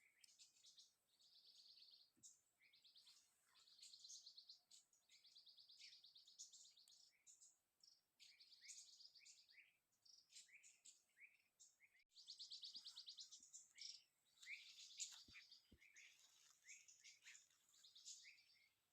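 Faint chorus of wild birds chirping, with rapid trills and short downward-sweeping chirps overlapping.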